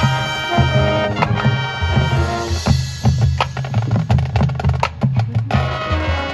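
Marching band playing: brass sustaining chords over a pulsing low drum beat, with a run of sharp percussion strikes in the middle.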